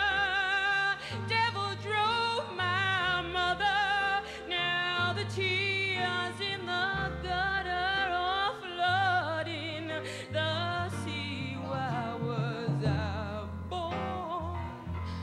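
A woman singing a live pop-soul ballad in a long, ornamented vocal line with heavy vibrato, over instrumental backing that holds long low notes.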